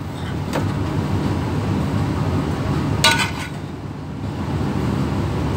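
A serving spoon clinks twice against a metal pot as stew is dished out; the second clink, about three seconds in, is the louder. Beneath it runs a steady low hum of the ship's machinery.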